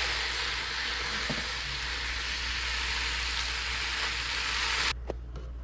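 Food sizzling in a hot pan on the grill: a steady hiss that cuts off abruptly about five seconds in, with a faint low hum underneath.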